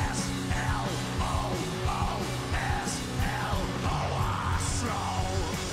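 Live rock band playing, with electric guitars, bass and drums under the lead singer's vocal, which comes in short repeated phrases that slide down in pitch.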